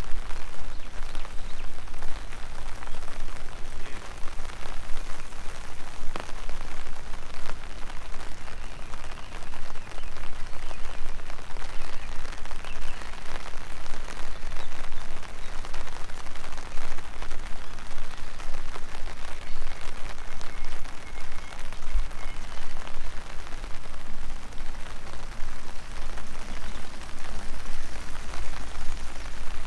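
Steady rain falling, a dense patter of drops with no letup.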